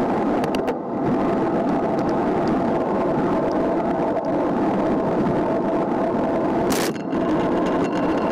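Wind rushing over the microphone and tyre noise from a road bike rolling along an asphalt road, with a faint steady hum running under it. A short, harsh burst of noise comes just before seven seconds in.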